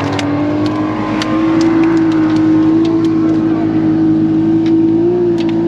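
Boat engine running steadily, its pitch climbing a little in the first second or two, with scattered light clicks over it.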